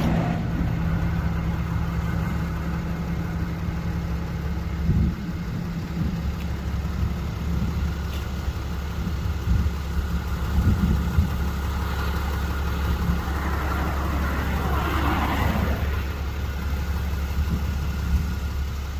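A pickup's diesel engine running with a steady low hum. About fourteen seconds in, a whooshing noise swells and fades.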